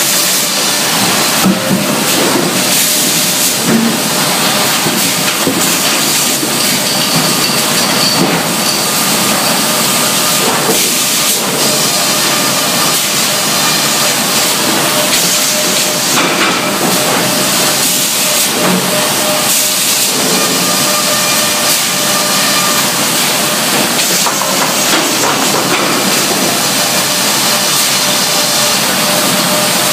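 Sawmill band headrig and its Stowell log carriage running, sawing a log: a loud, steady rushing noise with a few faint steady tones.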